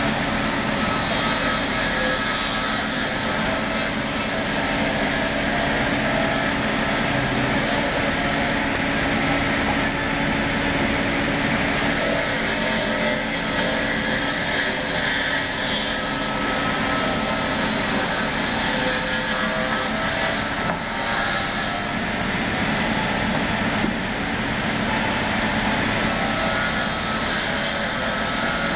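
Log-sawing machine running steadily, its saw cutting lengthwise through a log: a continuous loud mechanical drone mixed with sawing noise.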